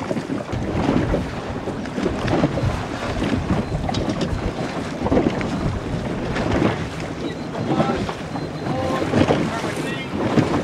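Wind buffeting the microphone over water splashing and lapping against a moving boat's hull, uneven and gusty, with faint voices near the end.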